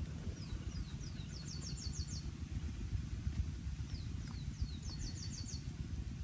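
A songbird singing twice, each song a few quick falling whistles followed by a fast trill of high repeated notes. Under it, a steady low rumble.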